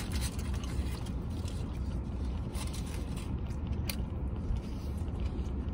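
Steady low rumble inside a parked vehicle's cabin, with a few faint clicks and crinkles of tin-foil wrapping as a taco is handled and eaten.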